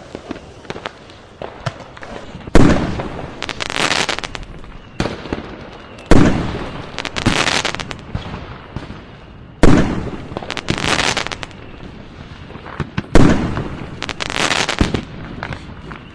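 Fireworks going off: four loud bangs about three and a half seconds apart, each followed by a second or so of crackling pops, with scattered smaller pops between them.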